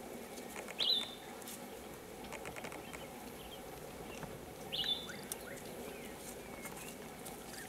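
A bird gives a short, sharp, high call twice, about a second in and again near five seconds, over faint chirping from other birds.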